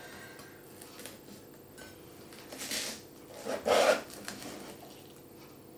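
Knife and pie server cutting and scraping through a baked puff-pastry pie in a metal baking tin: soft scraping, with two louder scrapes around three seconds in and just before four.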